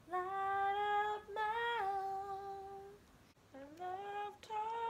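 A woman humming two short phrases of long held notes, each stepping up and back down in pitch, with a brief pause between them.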